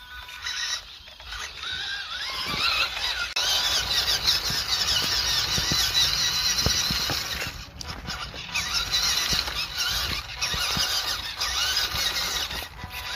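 Small RC crawler truck's 180-size electric motor and gears whining at a high pitch, the whine rising and falling with the throttle, with light knocks from the tyres and chassis over the ground.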